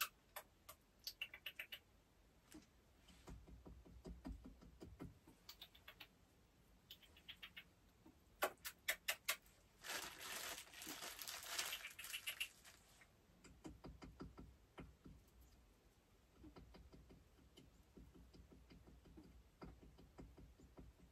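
Faint scattered clicks and rustling from treats being handled and a small weasel moving about among firewood, with a quick run of ticks and then a louder stretch of rustling about ten seconds in.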